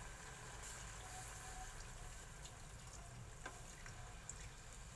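Faint sound of water being poured from a plastic cup into a pot of braising pork belly, with a couple of light clicks about three and a half and four and a quarter seconds in.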